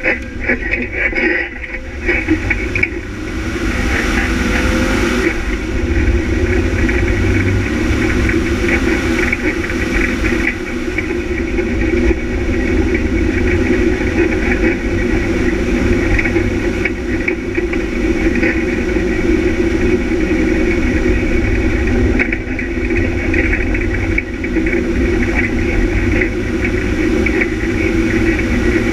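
Engine of a rally vehicle heard on board, running at fairly steady revs under a constant low rumble of wind and road noise. It is rougher and more uneven for the first few seconds, then settles.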